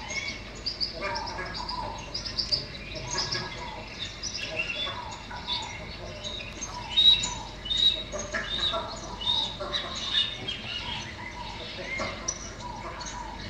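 Recorded chorus of many birds chirping and calling, with short high chirps and whistles overlapping throughout and one louder chirp about seven seconds in.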